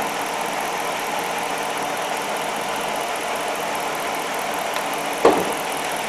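Jeep Commander's 5.7 Hemi V8 idling steadily, running evenly with its number 7 fuel injector firing again after being disabled for a misfire. A single sharp click about five seconds in.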